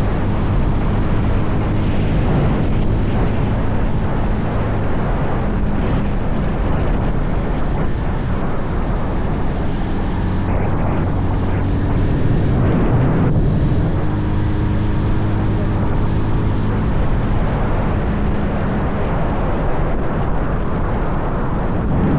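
Bajaj Pulsar 220F's single-cylinder engine running at steady riding speed, its note shifting a couple of times, under heavy wind rush on the microphone.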